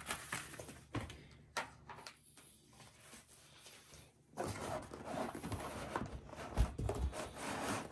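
Handling noises of unboxing packaging: a few light clicks and taps, then steady rustling of paper and packaging from about halfway through.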